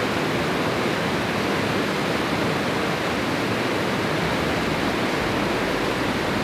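Steady rush of a fast stream tumbling over rocks in white-water rapids.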